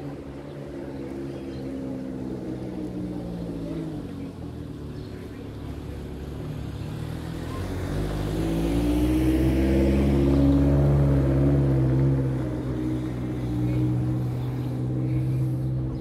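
A motor vehicle engine running, its pitch falling and rising as it changes speed, with a low rumble that grows louder toward the middle and then eases off.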